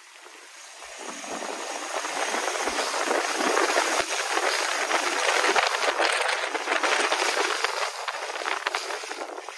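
Kumho Wintercraft Ice WS31 tyres hissing through wet slush and ice on the road, spray thrown off the tread, with rushing air. The hiss swells over the first few seconds and eases off near the end.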